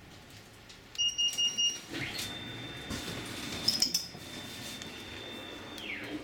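Funicular car's door warning signal: a quick run of about five high beeps, then one steady high tone held for about three and a half seconds that slides down in pitch as it stops.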